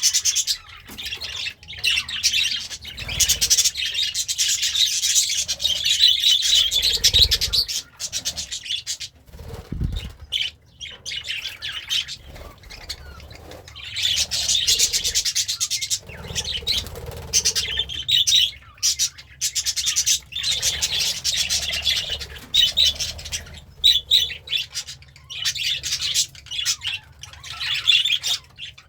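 Budgerigar warbling and chattering in long, rapid bouts broken by short pauses, with sharper chirps and squawks mixed in.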